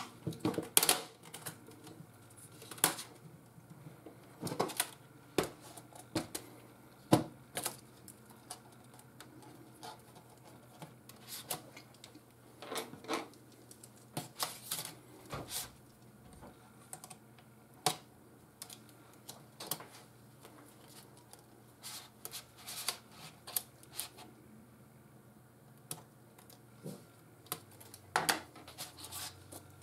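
Irregular sharp plastic clicks and clatter from an HP 450 G4 laptop keyboard as it is pushed out of its palmrest latches with a screwdriver, then shifted and set down on the palmrest.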